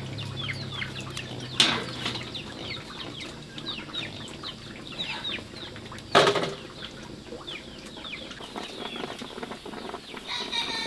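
A flock of chicks peeping: many short, high, falling cheeps, several a second. Two sharp knocks come about one and a half seconds and six seconds in.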